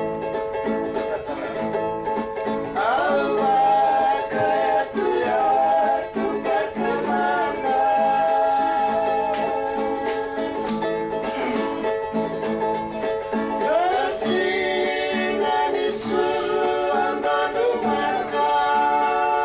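Singing over strummed acoustic guitars, a steady strumming rhythm throughout, with the sung melody coming in about three seconds in.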